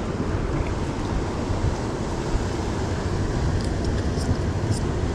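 Steady wind noise buffeting the microphone over the continuous rush of ocean surf.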